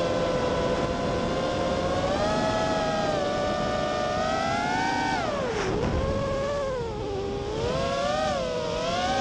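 Racing quadcopter's electric motors and propellers whining, heard close from the onboard camera. The pitch rises and falls with the throttle, dropping sharply about five and a half seconds in and then climbing again.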